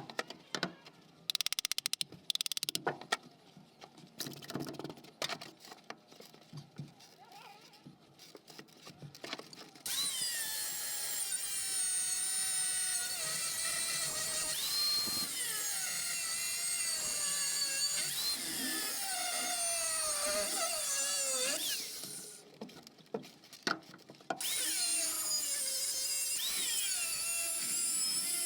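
Angle grinder cutting into a compressor's metal shell, its motor pitch sagging and recovering as the disc bites. Scattered knocks and clicks of metal being handled come first, and the grinding stops briefly before starting again near the end.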